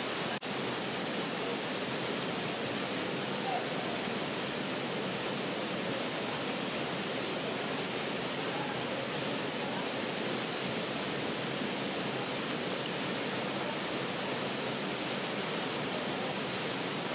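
Large waterfall pouring into its plunge pool: a steady, unbroken rush of falling water.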